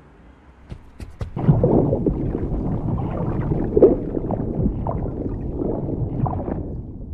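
A few sharp taps, then a loud, low, rumbling and gurgling rush of water, an underwater plunge sound effect that surges about four seconds in and eases near the end.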